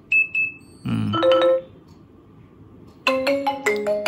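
Lenovo K5 Note's loudspeaker playing tones during a sound check from the volume settings: a short high beep, a brief chime about a second in, then a ringtone melody of quick notes starting about three seconds in. The sound is crystal clear.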